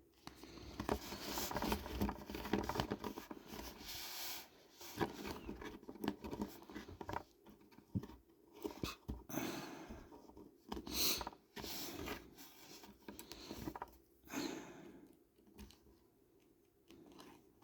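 Close handling of a plastic action figure and its accessories: irregular rubbing and rustling with small clicks as a piece is fitted into the figure's hand. It quietens near the end.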